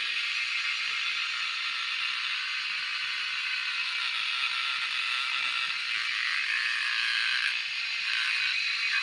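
Cicadas buzzing in a dense, steady chorus. About six seconds in, a second, lower-pitched buzz joins over it.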